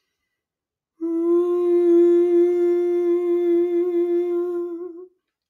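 A woman humming one steady note with her mouth closed, starting about a second in and held for about four seconds before it stops: vocal toning.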